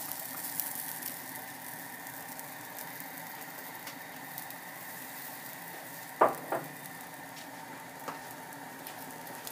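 Oat and chia pancake batter sizzling steadily in a hot buttered frying pan. Two sharp knocks sound about six seconds in, and a lighter one comes near the end.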